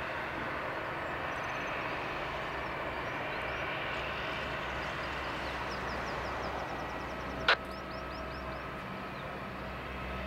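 Steady jet aircraft noise on an airport apron, with faint high chirping and one sharp click about seven and a half seconds in.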